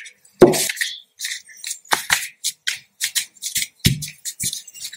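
Paper crafting at a table: a glue stick rubbed and tapped over sheets of paper, the paper rustling and being pressed flat by hand. There are short scratchy rustles throughout and two soft knocks, about half a second in and near the four-second mark.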